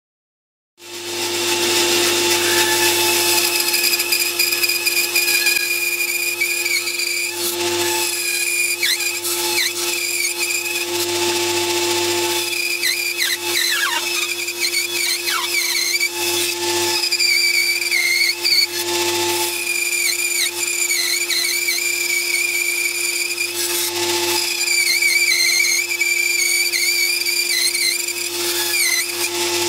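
Bandsaw running and cutting a block of wood, starting abruptly about a second in. A steady motor hum and blade whine carry under a cutting noise whose pitch wavers and dips as the block is fed through and steered around the curves of the pattern.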